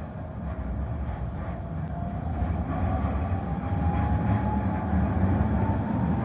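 NGTW6 'Leoliner' tram approaching on street track, its rolling rumble growing steadily louder, with a faint whine slowly rising in pitch.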